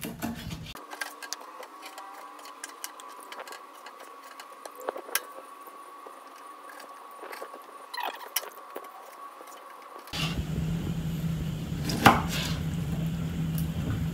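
A kitchen knife clicking and knocking against a plastic cutting board while raw chicken is cut into small pieces, over a faint steady hum; a sharper knock stands out near the end.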